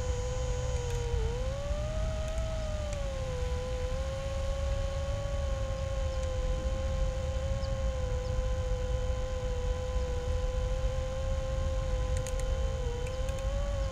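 iFlight Nazgul5 HD 5-inch FPV quadcopter's four brushless motors and props whining at a steady cruising pitch, which dips and then swells up and back down about a second in, and dips and rises slightly near the end. A low rumble of wind on the microphone runs underneath.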